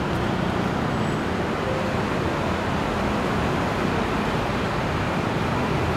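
Steady wash of city traffic noise with no single vehicle standing out.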